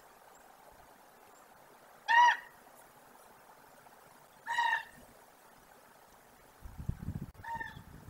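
A bird calls three times, each a short clear honk-like call about two and a half seconds apart, the last one fainter. A low rumbling noise comes in during the last second or so.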